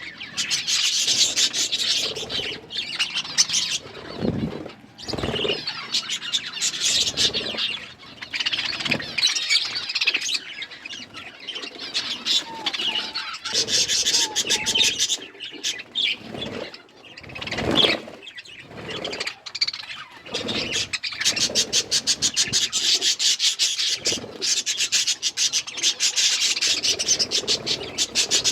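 A group of budgerigars chirping and chattering, with fast, dry crackling and rasping throughout, and a few dull bumps about four to five seconds in and again near the middle.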